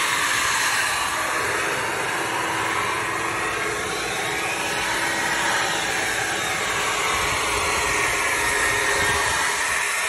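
Leaf blower running steadily, blowing rinse water out of an HVAC condenser coil, the rushing air swelling and easing slowly.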